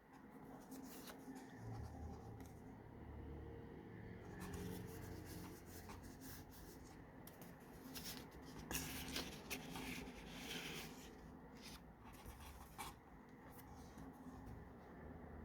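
Pages of a handmade paper junk journal being handled and turned: faint rustling and rubbing of paper, with a few soft page flicks.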